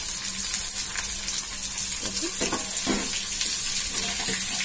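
Sliced onions and green chillies sizzling in hot oil in a kadai: a steady frying hiss, with a few light clicks from stirring.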